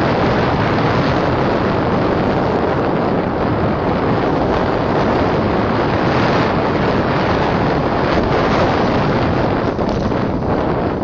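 Wind rushing over the microphone of an onboard camera on a moving vehicle, mixed with road noise. The sound is steady and loud throughout, with no clear engine note standing out.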